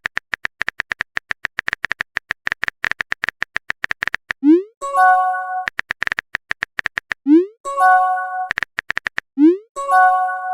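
Electronic music built on rapid, even clicks, about ten a second. Three times a quick rising blip is followed by a short held chord.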